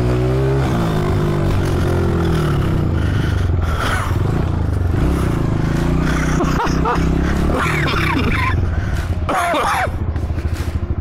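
Honda CRF125F's single-cylinder four-stroke engine running under the rider, its pitch rising and falling with the throttle. Near the end it drops to a low, even putter as the bike slows.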